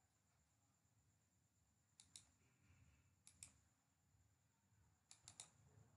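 Faint computer mouse button clicks, mostly in quick pairs, over near silence with a faint steady high whine.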